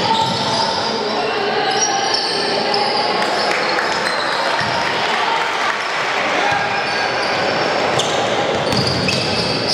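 Basketball game sounds in a sports hall: a basketball bouncing on the wooden court under a continuous mix of voices from players and spectators.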